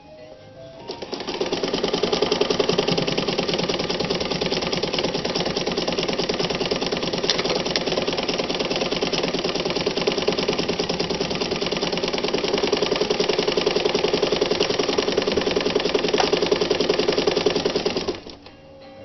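Calanda sewing machine (Japanese-made, sold by Pfaff) stitching at a steady fast pace with its feed dogs dropped, for free-motion sewing. The even rapid clatter starts about a second in and stops near the end.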